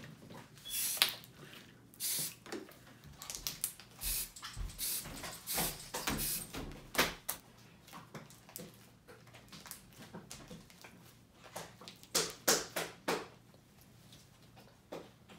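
Short hisses of spray paint from an aerosol can sprayed onto water in a bowl, among clicks and knocks of cans and a plastic container being handled, with a cluster of louder knocks near the end as the container is pushed into the water.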